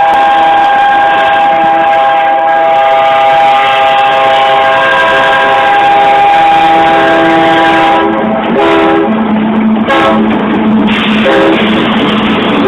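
Freight locomotive air horn sounding one long held multi-note chord as the train approaches a road crossing, breaking into shorter blasts about eight seconds in.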